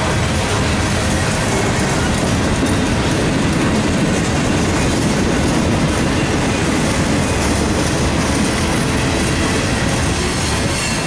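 Freight cars of a passing manifest train, covered hoppers and boxcars, rolling by close at hand: a loud, steady rumble and clatter of steel wheels on the rails.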